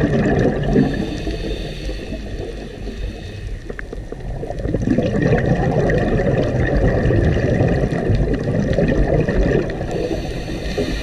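A scuba diver's exhaled bubbles gurgling out of the regulator, recorded underwater, in two long gushes: one fading out about two seconds in, and a longer one from about four and a half seconds in to near the end. Scattered faint sharp clicks run underneath.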